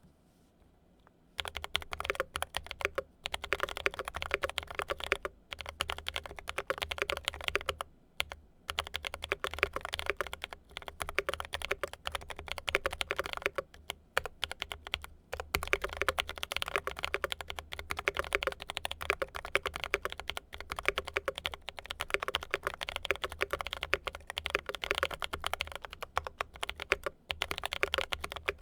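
Steady fast typing on a Gray Studio Space65 custom mechanical keyboard with lightly lubed Drop Holy Panda tactile switches, GMK Space Cadet keycaps and plate and case foam. The keystrokes begin about a second in and run as a dense stream, broken by a few brief pauses.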